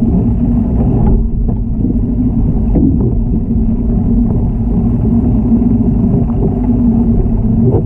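Loud, steady low rumble with a hum, heard underwater: a hot tub's pump and jets churning the water around a submerged camera, muffled, with little treble.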